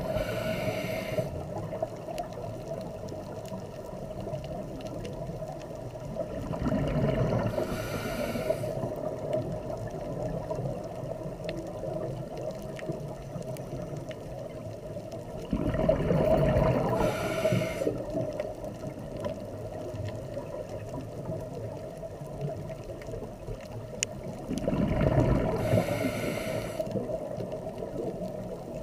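Scuba diver breathing through a regulator underwater: about every nine seconds a low rumble of exhaled bubbles followed by the hiss of an inhale, three full breaths in all, over a steady low hum.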